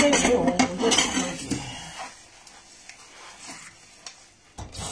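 Dishes and cutlery clattering in a kitchen sink as they are washed by hand, busiest in the first second and a half, then lighter occasional clinks. A rushing noise starts just before the end.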